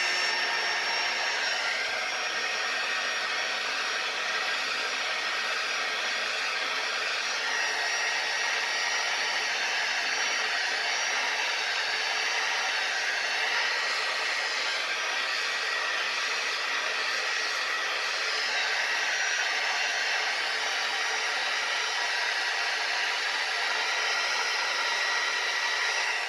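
Hot air gun blowing steadily: an even rushing hiss with a faint high whine. It is softening the adhesive that holds an iPad's front glass, and it cuts off at the end.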